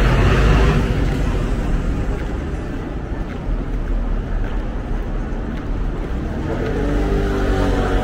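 Busy beach ambience: a steady low rumble under a wash of background noise, with people's voices rising near the end.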